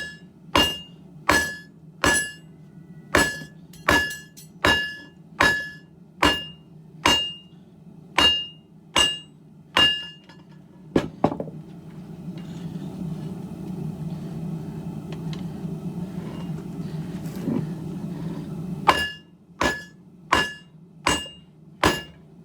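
Hand hammer striking hot leaf-spring steel on an anvil at a steady pace, about one blow every 0.8 seconds, each blow leaving a short metallic ring. About ten seconds in the hammering stops, leaving a steady low rushing noise, then resumes for five more blows near the end.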